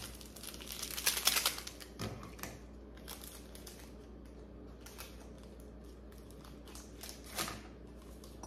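Crinkling of wrapping being handled on a countertop, loudest about a second in. It is followed by a few lighter clicks and rustles as rose stems are cut with scissors and trimmed for a vase.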